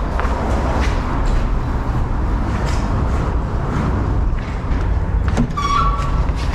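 Footsteps on a hard floor over a steady low rumble, with scattered knocks and clicks. Near the end a short electronic beep steps up in pitch as the glass entrance doors are reached.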